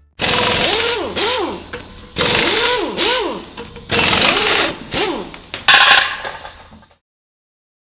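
A power tool run in four loud bursts about two seconds apart, its motor whine rising and then falling in each burst.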